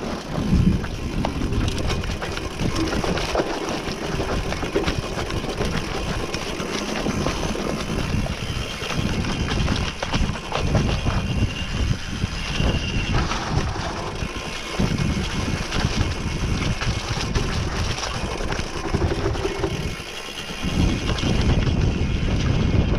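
Mountain bike riding down a rough dirt single-track: wind buffeting the microphone over the rattle and knocks of the bike on the ground, easing briefly about twenty seconds in.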